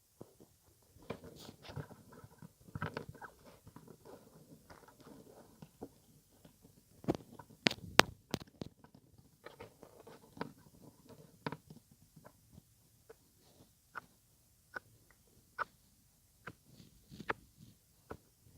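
ASMR mouth sounds close to the microphone: wet lip smacks and tongue clicks coming irregularly, with the loudest, sharpest clicks about seven to eight seconds in.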